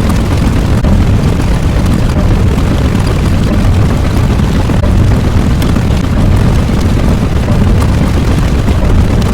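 A loud, steady low rumble without any clear pitch, a sound effect that stays even and does not change.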